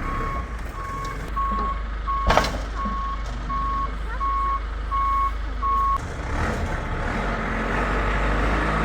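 A truck's reversing alarm beeping steadily, about one and a half beeps a second, over a heavy engine rumble. There is a loud clunk about two seconds in. The beeping stops about six seconds in while the engine keeps running.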